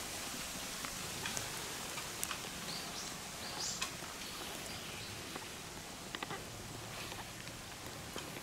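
Outdoor ambience: a steady hiss with scattered faint clicks, and a few short high chirps from small birds about three seconds in.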